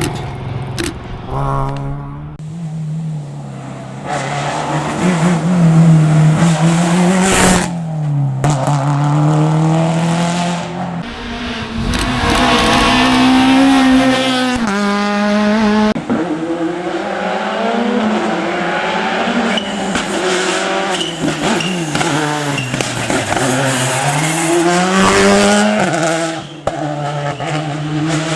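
Rally cars driven flat out on a special stage, engines revving hard and rising and falling through gear changes and lifts, with some tyre squeal. The sound changes abruptly several times as one car's pass is cut to the next.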